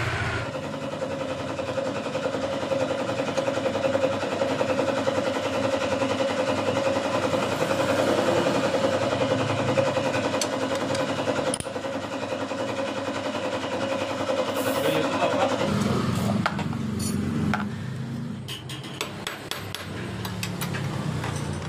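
A steady mechanical hum of several even tones, which stops about 16 seconds in. Then scattered clicks and knocks of hand tools on the motorcycle's water pump cover.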